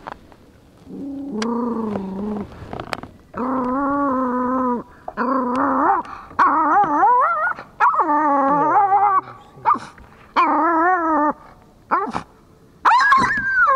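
Yorkshire terrier giving a string of long, wavering whines and yowls, about seven in a row, rising higher near the end, excited at a deer on the shore; the noise chases the deer away.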